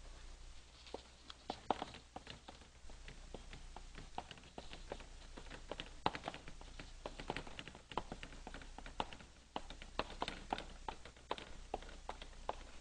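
Chalk writing on a blackboard: a run of quick, irregular taps with a few short scrapes as the letters go on.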